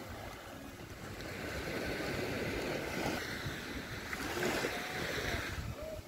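Small waves of a calm sea lapping against a low rocky shoreline, with wind rumbling on the microphone.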